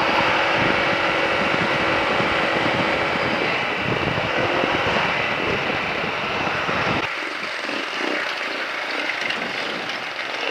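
Wind buffeting the microphone of a moving motorcycle over a steady engine and road drone. About seven seconds in, the low buffeting drops away and the sound thins out.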